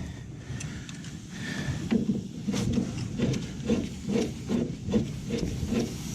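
A rusted threaded steel gas-pipe fitting being forced with a pipe wrench, creaking and grinding. After about two seconds it settles into a steady run of strokes, roughly two or three a second, as the seized threads give.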